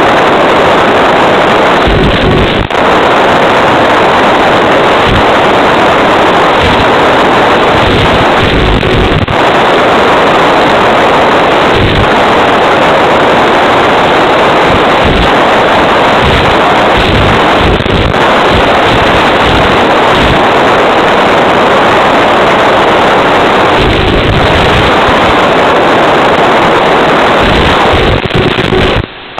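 Loud, steady rushing noise from an FPV plane's onboard audio in flight, wind buffeting the microphone, with no clear motor tone. Low thumps come and go, and the sound drops out briefly near the end.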